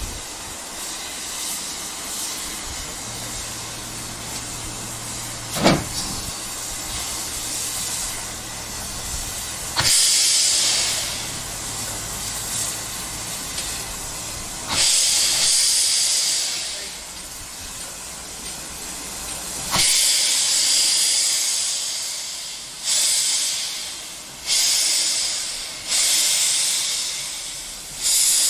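GWR steam locomotive starting away under a steady hiss of steam. Its exhaust beats come slowly at first, about five seconds apart, then quicken to about one every second and a half near the end. A single sharp clank about six seconds in.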